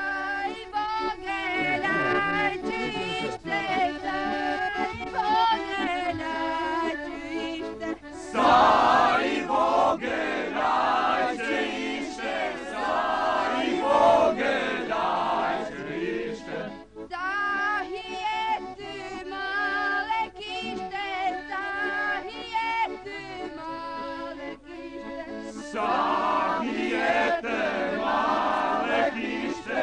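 A group of voices, led by men, singing an Albanian highland folk song together. The singing swells louder about eight seconds in and again near the end.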